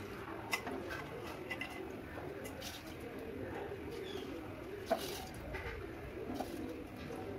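A bird cooing repeatedly in the background, a low wavering call. A few light metal clinks of a spoon against steel pots come near the start and about five seconds in, as soaked rice is spooned into a pressure cooker.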